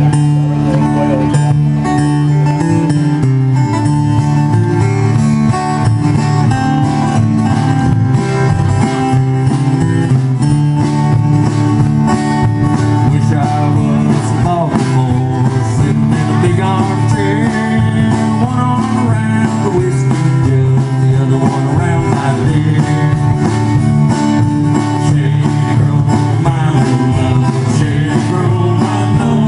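Live country band playing with a steady beat: strummed acoustic guitars over an upright bass line and a drum kit.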